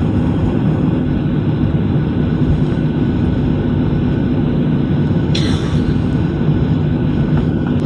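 Steady rumble of a vehicle in motion, with a low hum, and a single short clack about five and a half seconds in.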